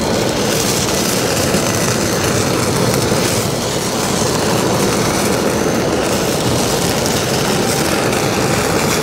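Handheld butane kitchen torch running with a steady hiss of its jet flame while it sears slices of beef on a plate.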